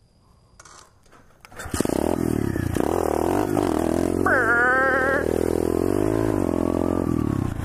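Near quiet at first, then a little under two seconds in a pit bike engine starts revving hard, its pitch rising and falling again and again as the bike accelerates away, with one steep climb in revs a little past halfway.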